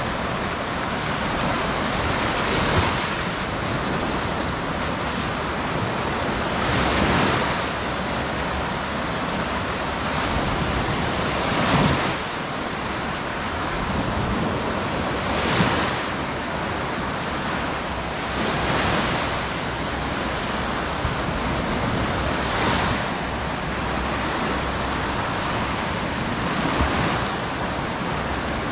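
Mediterranean sea waves breaking on the shore over a steady wash of surf. A wave swells and breaks about every four seconds, seven times.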